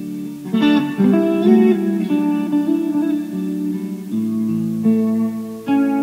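Background music: a guitar playing chords, with strums about half a second in, again at about one second, and near the end.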